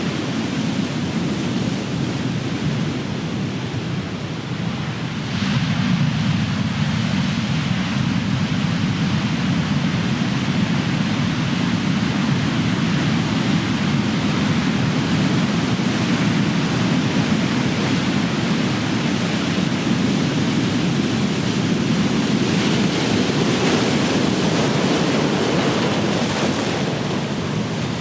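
Ocean waves crashing and washing in, a constant rushing surf noise that dips slightly about four seconds in and swells again as a new wave breaks a second or two later, with a further swell near the end.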